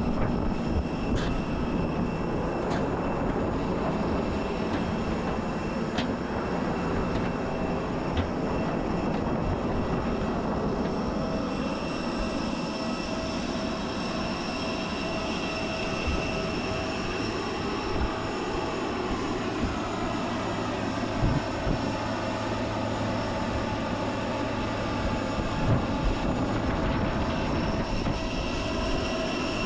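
Steady hum and whine of a parked Airbus A320neo's onboard systems, with several steady tones over a rumbling noise and a few faint knocks.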